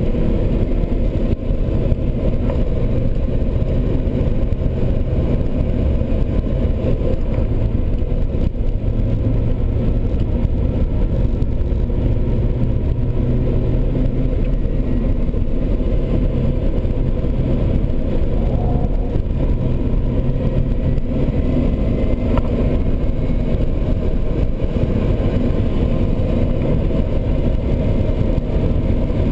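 Car engine running hard with road and wind noise, heard from inside the cabin while lapping a race track at speed.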